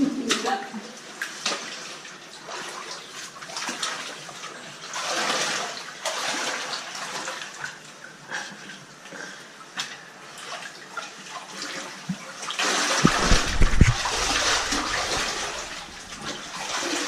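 Running water in a cave stream, rising and falling in a hiss with scattered knocks. About thirteen seconds in comes a second of heavy low thumping, the loudest moment.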